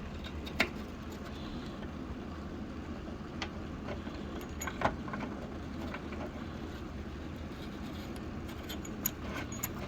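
A few sharp metallic clicks, several seconds apart, as mortise lock parts are fitted back into the door, over a steady background noise.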